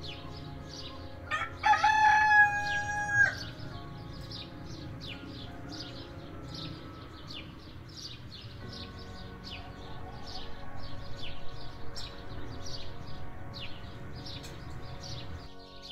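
A rooster crows once, a single call of about two seconds starting about a second and a half in, the loudest sound here. Small birds chirp over and over in the background.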